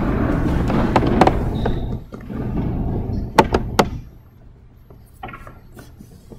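A congregation shuffling and rustling as it settles into the pews, with scattered knocks and two sharp thuds about three and a half seconds in. It then falls to quiet room tone with a few faint clicks.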